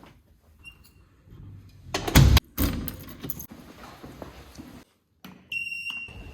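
Handling noise with a few loud clattering knocks, like keys or a door being worked. Near the end comes a short, steady high-pitched electronic beep.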